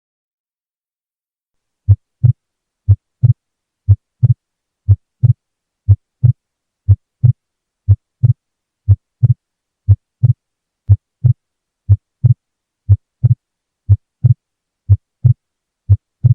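Heart sounds: paired lub-dub beats (first and second heart sounds) at about 60 beats a minute, starting about two seconds in, with nothing heard between the beats.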